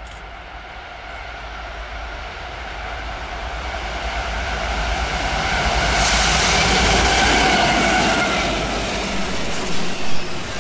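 Norfolk Southern diesel freight locomotives approaching and passing close by, getting louder for about six seconds, with the engines' steady drone over the rumble of the train. Near the end, double-stack container cars roll past with their wheels clacking over the rail joints.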